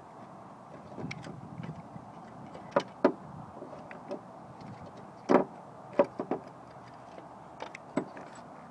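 Irregular metallic clicks and knocks as a 1996 Nissan Maxima's water pump is worked by hand up and out of its bore in the engine, the loudest knock about five and a half seconds in.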